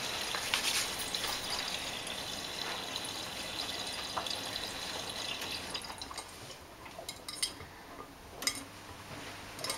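Miele Navitronic front-loading washing machine taking in water for the prewash: a steady hiss of water spraying through the inlet into the drum and onto the laundry. About six seconds in it gets quieter, and the drum turns with a few splashes and soft knocks from the wet load.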